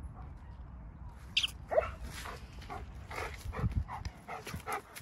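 German shepherd dog giving a short high-pitched whine about a second and a half in, then panting rapidly, about three to four breaths a second.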